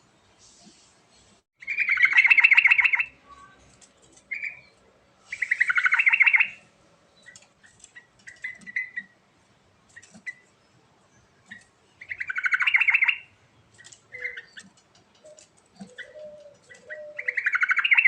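Yellow-vented bulbul (trucukan) singing: four loud bursts of song, each a fast run of repeated notes lasting about a second and a half, with short, softer notes between them.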